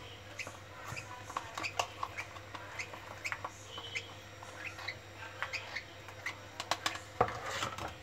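Baby lovebird chicks making short, irregular chirps and squeaks, with a faint steady low hum underneath.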